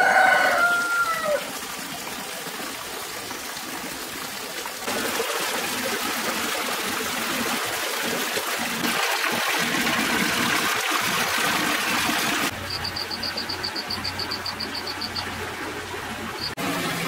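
Water splashing and trickling from small fountain jets into a pool. It is steady and grows brighter from about five seconds in, after a rooster's crow ends right at the start. Near the end comes a high, rapidly pulsed chirp, at about five or six pulses a second.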